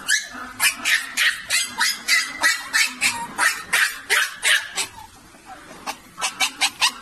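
A group of young puppies yipping and whining in rapid short, high cries, about three or four a second, easing off briefly about five seconds in and starting up again near the end.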